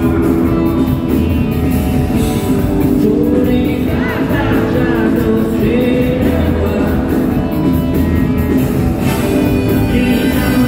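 Live rock music: a band playing with a male singer at the microphone, recorded from the audience.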